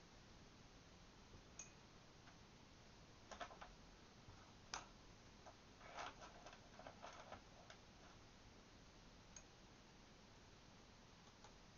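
Faint, irregular clicks and light knocks of paintbrushes being picked up and set back down on a tabletop, bunched in the middle of an otherwise near-silent stretch.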